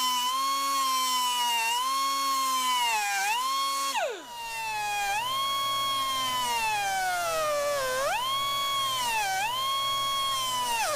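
Air-powered cut-off grinder whining at high pitch as its wheel cuts through a car's quarter-panel sheet metal, the pitch sagging each time the wheel bites into the metal. About four seconds in it is let off and winds down, then spins back up and keeps cutting.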